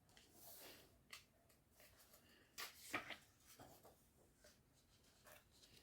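Faint rustling and light handling of thin paper: pages of an album's lyrics booklet being turned, with a slightly louder rustle about three seconds in, amid near silence.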